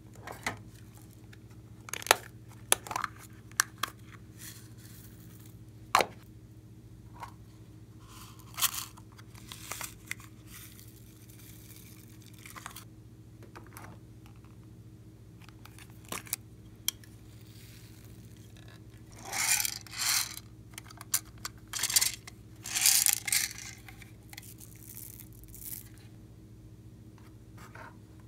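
Small plastic topping containers being handled with sharp clicks and taps, then several short rustling pours, about a second each, as glitter, sequins and foam beads are shaken out onto a tray of glossy slime.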